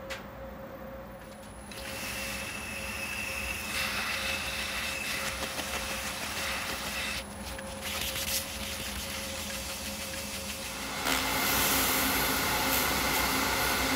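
Wood lathe running with a steady hum while the spinning walnut is worked with a tool. The hiss of the work dips briefly about seven seconds in and grows louder about eleven seconds in.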